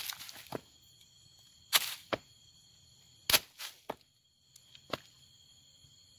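A person knocking and scuffing at the forest floor in a handful of sharp, scattered strikes, trying to provoke termite soldiers into their alarm drumming. The termites do not answer, so no rain-like rattling follows. Night insects keep up a steady high chirring behind it.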